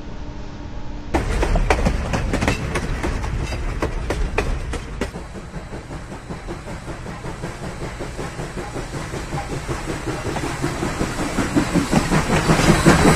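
Train running on rails, with a rapid clickety-clack of wheels over the rail joints. It starts suddenly about a second in, settles into a steady rumble, and grows louder near the end.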